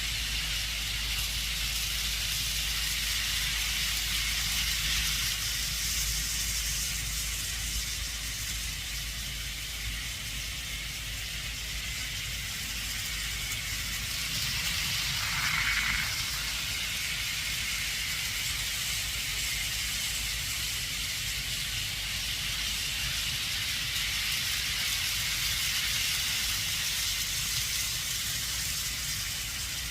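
Model trains running on the track: a steady hissing rolling noise with a low motor rumble that swells and fades as they pass, and a brief higher-pitched sound about halfway through.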